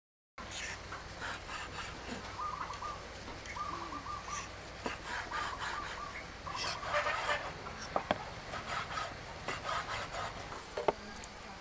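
Large knife slicing through roasted pork neck on a wooden cutting board, with repeated rasping cuts and knocks of the blade on the board, starting after a moment of dead silence. Birds call in the background.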